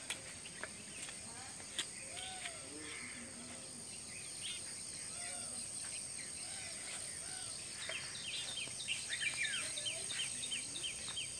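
Rural outdoor ambience: a steady high insect drone, with birds calling now and then and a quick run of short falling chirps near the end.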